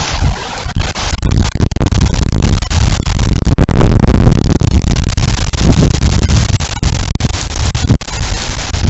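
Storm wind blowing hard, buffeting the microphone: a loud, dense rushing noise with a heavy low rumble that surges and drops in uneven gusts.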